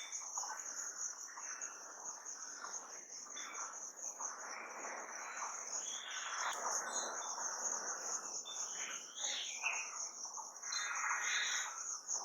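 A steady, high-pitched trill from an insect chorus, with bird calls and chirps coming and going over it.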